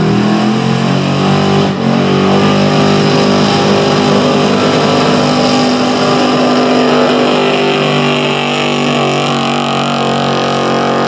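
Gasoline engine of a 1970s Dodge pickup running at a steady high rev under heavy load as it drags a weighted pulling sled, with a brief dip about two seconds in.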